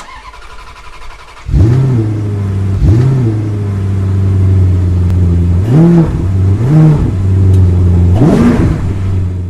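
Car engine idling with about five quick blips of the throttle, each a short rise and fall in pitch, starting about a second and a half in.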